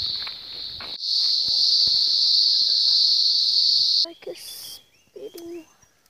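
Loud, steady, high-pitched insect chorus droning, which cuts off suddenly about four seconds in. After it come a few short, faint voice-like sounds.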